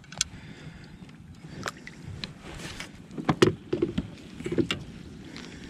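Irregular knocks and clatter of gear being handled aboard a kayak, loudest about three and a half seconds in.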